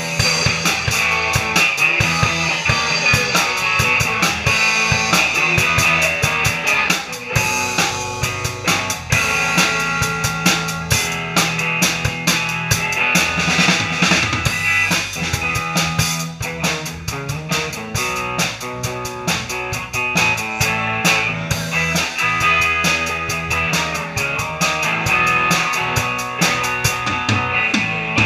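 Live rock band playing: a drum kit keeping a steady beat with kick, snare and cymbals, loudest in the mix, under electric guitars.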